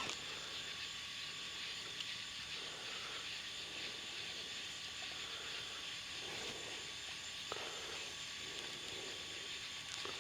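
Quiet outdoor background: a steady high hiss, with a faint click about two seconds in and another near the end.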